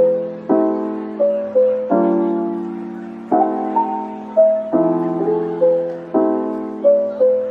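Background music: a piano playing slow chords, struck about every second and a half and left to fade, with a simple melody of single notes on top.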